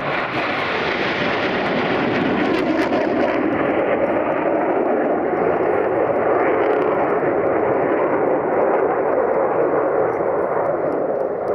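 Loud, steady jet engine noise of military jets flying past in an airshow display.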